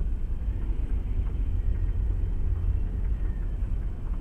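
Steady low rumble of a car driving along a street, engine and road noise heard from inside the car's cabin.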